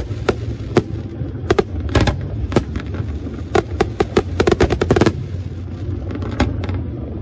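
Aerial firework shells bursting in an irregular run of sharp bangs and crackles, most rapid about four to five seconds in, over a steady low rumble.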